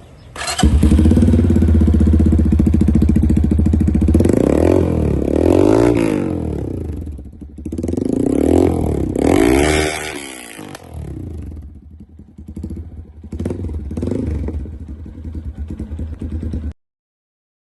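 Hi Speed SR200 motorcycle engine through an AR Austin Racing GP E32 carbon-fibre shorty muffler. It comes in about half a second in and idles, is revved up and down twice, is blipped a few more times, then stops abruptly near the end.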